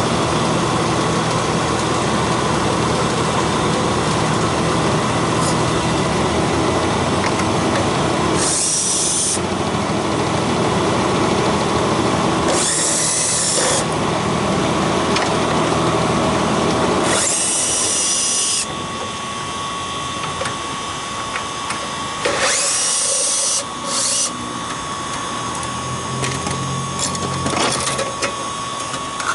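Power tool running in four short bursts of about a second each over a steady mechanical running noise, which drops away about two-thirds of the way through.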